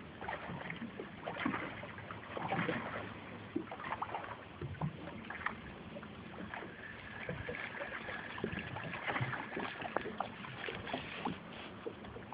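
Small boat sitting on the water: small waves lapping and slapping against the hull, with scattered light knocks and clicks at irregular moments. A faint steady tone sounds for a few seconds in the middle.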